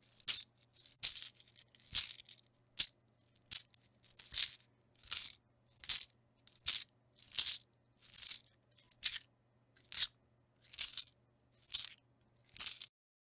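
A handful of coins shaken, jingling in short bright bursts at a steady pace of a little over one shake a second, with silence between shakes.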